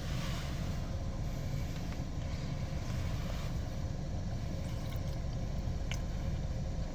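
Steady low rumble of a vehicle, with faint sounds of biting into and chewing a pickled egg.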